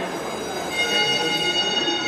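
Fire alarm sounding a steady, high-pitched electronic tone, several pitches held at once, over background crowd noise.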